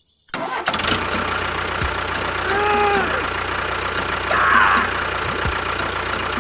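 A small engine starts up just after the beginning and then runs steadily with a regular knocking rhythm. A brief pitched call comes about two and a half seconds in, and a short louder burst about four and a half seconds in.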